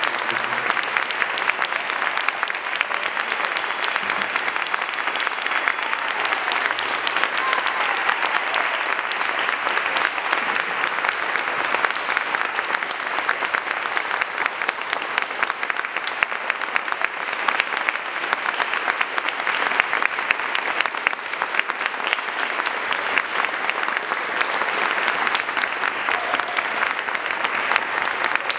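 Audience applauding, dense clapping that holds at a steady level throughout.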